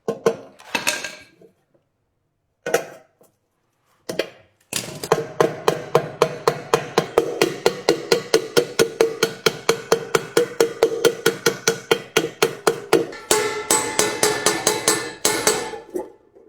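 Hammer blows peening an aluminium rivet into a small hole in a stainless steel pot's bottom: a few separate knocks, then a long, steady run of about four strikes a second, the pot ringing with each blow.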